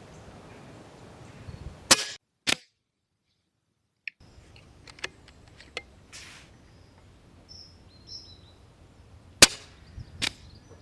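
Regulated PCP air rifle (Airgun Technology Vulcan 2 Tactic) firing: sharp cracks, two about two seconds in and two more near the end, with a few lighter clicks between.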